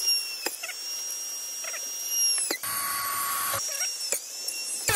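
Small power drill running at high speed, boring holes in a carbon fiber battery tray, with a high-pitched whine. The whine drops in pitch and dies away about five times as the motor slows, then comes back up. About halfway through there is a harsher, noisier stretch of about a second.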